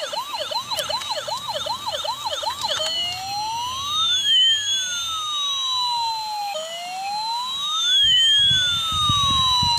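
Toy police van's electronic siren playing from its small speaker: a fast warbling yelp, about three rises a second, which about three seconds in changes to a slow wail that rises and falls twice.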